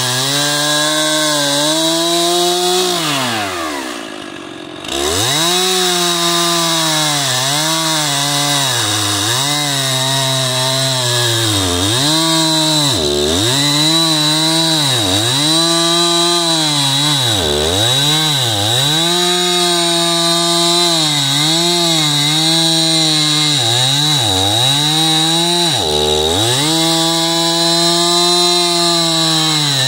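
Stihl two-stroke chainsaw running hard through a cut in a tree, its engine pitch dipping and recovering about once a second. About three seconds in, the engine slows right down and comes back up to speed a couple of seconds later.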